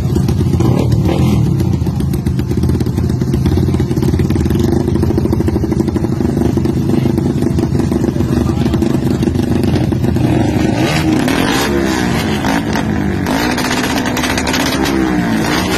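Modified drag-racing motorcycles revved hard through loud exhausts, held at high revs at first, then revved up and down in repeated waves from about eleven seconds in.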